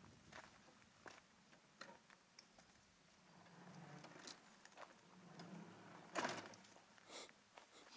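Near silence with faint scattered clicks and footsteps on gravel, a faint low hum in the middle, and one louder click about six seconds in.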